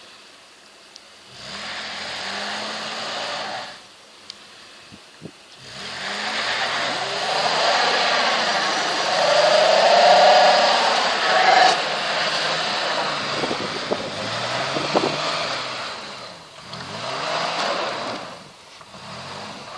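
Mitsubishi Pajero engine revving in bursts as the all-terrain tyres spin and churn in snow. The first burst lasts a couple of seconds, the longest runs about ten seconds with the pitch rising and falling, and a short one comes near the end.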